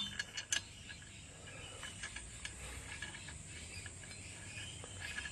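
A few light metallic clicks in the first half second, as lug nuts are handled and fitted onto a car wheel, then a faint steady hiss.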